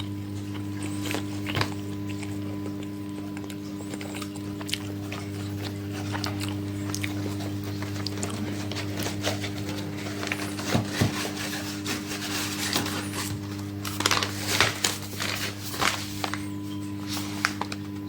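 Microwave oven running with a steady electrical hum while popcorn kernels pop inside, sharp pops scattered throughout and coming thick and loud about fourteen seconds in.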